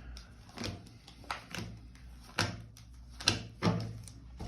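A series of about seven sharp, irregular taps and knocks, the loudest at the very end.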